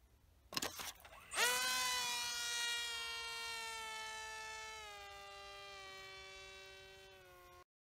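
A sharp snap as the rubber-band launcher releases, then just under a second later the RC plane's motor and propeller spin up into a loud buzzing whine. The whine slowly falls in pitch as the plane flies off, drops a step in pitch about halfway through, and cuts off suddenly near the end.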